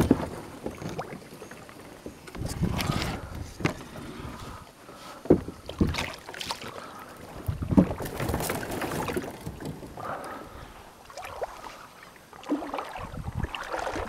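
Hollow knocks and bumps on a plastic sit-on-top kayak as the paddle and gear are moved about on deck, several sharp knocks with rustling and shuffling in between.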